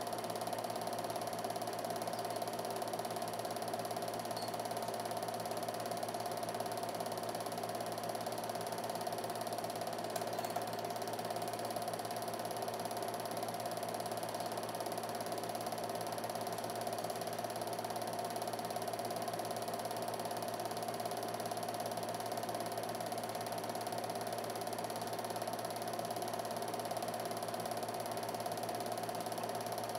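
Home-movie film projector running: a steady, unchanging mechanical whir with several held tones.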